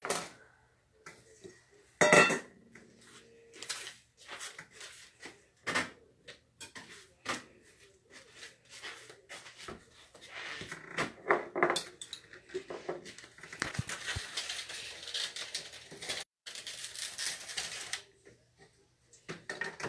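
Dishes and utensils being handled on a kitchen counter: scattered clinks and knocks, the loudest about two seconds in, with a busier stretch of scraping and rustling in the second half.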